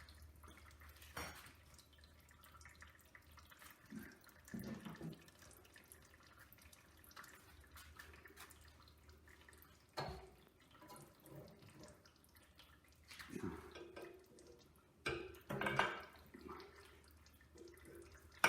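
Diesel fuel dripping and trickling from a disconnected fuel line into a catch container, with a few sharp metallic clicks and short bouts of spanner work on the pipe fitting.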